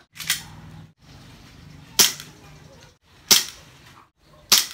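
Airsoft pistol firing four single shots, sharp cracks spaced about a second and a half apart.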